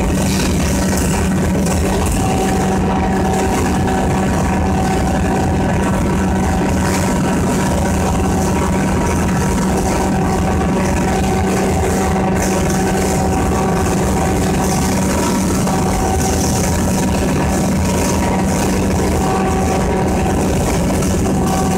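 Raymond roller mill grinding plant running: a loud, steady machine drone with a constant low hum and a fainter higher whine.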